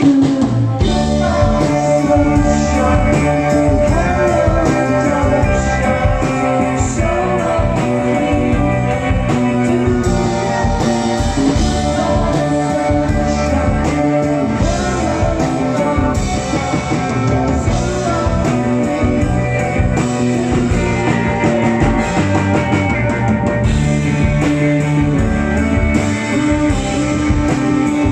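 Rock music: a band playing with guitar and drums, with singing.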